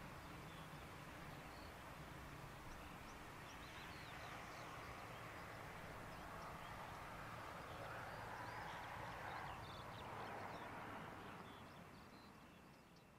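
Jet engines of a taxiing Airbus A319 corporate jet running at low taxi thrust, heard from a distance as a steady rushing hum, with birds chirping over it. The sound fades away near the end.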